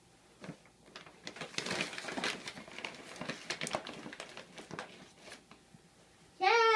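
Brown paper grocery bag rustling and crinkling as hands open it and set it down, a run of quick crackles lasting several seconds. A brief high-pitched call is heard at the very end.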